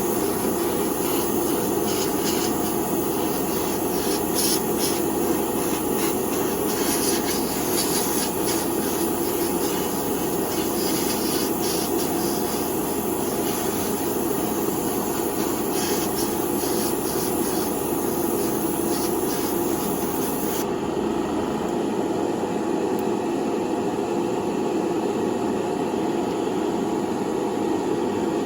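Steady whooshing of a running air machine used in painting, such as a hair dryer or an airbrush compressor. Its high hiss drops away about 20 seconds in, while the lower drone keeps on.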